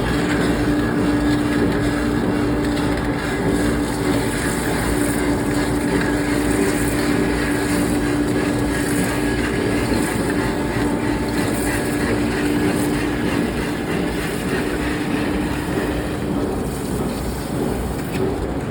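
Steady industrial machinery noise: a continuous rumble with a steady hum, no distinct hammer strikes.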